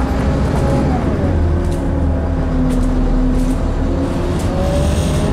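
Scania N230UD Enviro400 double-decker bus's five-cylinder diesel engine and drivetrain heard from inside the cabin while under way: a steady low rumble with a whine that drops in pitch about a second in, holds, then rises again near the end.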